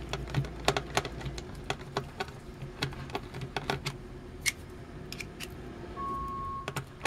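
Quick small plastic clicks and rattles as batteries and the battery cover are worked out of a Tickle Me Elmo's plastic giggle box, thinning out after a few seconds. About six seconds in, a digger's reversing alarm starts beeping, a steady high tone.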